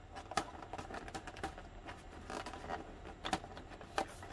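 Fingers bending back the crimped rim of an aluminium foil takeout tray to free its lid: faint crinkling and scraping of foil, with scattered sharp clicks.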